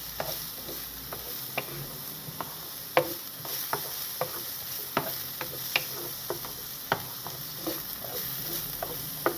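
Onions frying and sizzling softly in a pan while being stirred, a utensil clicking and scraping against the pan at irregular intervals.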